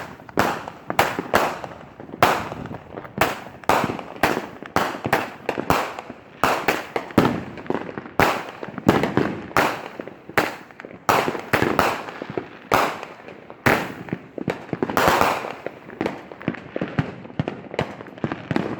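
Fireworks going off in quick, irregular succession: sharp bangs, about two a second, each with a short echo.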